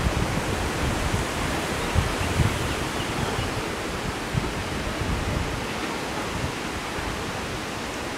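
Wind blowing across the microphone: a steady rushing hiss with irregular low buffeting thumps.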